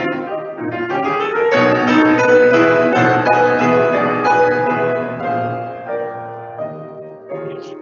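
Grand piano being played: a dense passage of many notes at once that swells about a second and a half in, then gradually grows softer towards the end.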